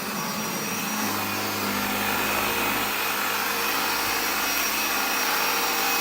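Bissell AirRam 22-volt cordless upright vacuum running steadily while it cleans the floor: a constant motor whine over the rush of suction and the brush roll.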